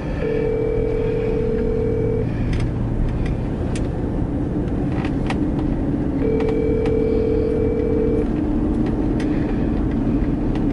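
Telephone ringback tone from a phone on speakerphone, ringing twice: each ring a steady two-second tone, about four seconds apart. Under it runs the steady road noise of the moving car's cabin, with a few faint clicks.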